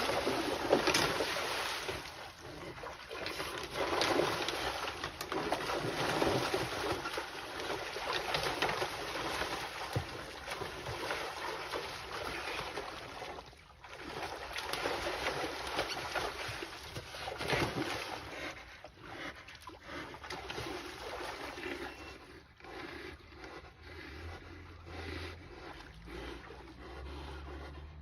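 Two white-tailed deer bucks scuffling and sparring in dry leaves and brush: continuous rustling and crunching with scattered clicks, thinning out and quieter toward the end.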